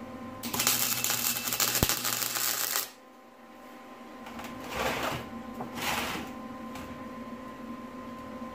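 Wire-feed (MIG) welder crackling steadily for about two and a half seconds as a bead is run on a steel power-ball bracket, cutting off sharply, with a low hum under it that stops at the same time. Two shorter, softer bursts of sound follow a couple of seconds later.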